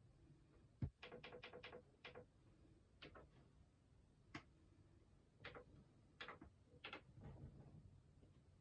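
Faint clicking from the panel buttons of a Yamaha PSR-SX600 arranger keyboard: a knock, a quick run of about five clicks, then scattered single clicks.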